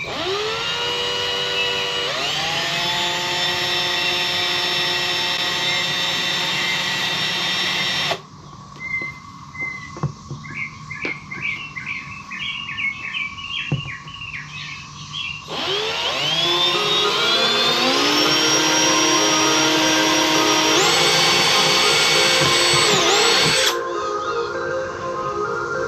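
Cordless drill running in two long runs of about eight seconds each, its motor whine rising in pitch as it spins up, drilling 1/8-inch pilot holes for mounting screws. Birds chirp in the pause between the runs.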